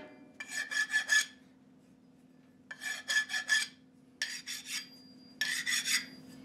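Flat hand file scraping in quick strokes across the edges of a steel GM connecting rod cap, deburring raised surfaces before the cap is ground. It comes in four short bursts of several strokes each, with brief pauses between them.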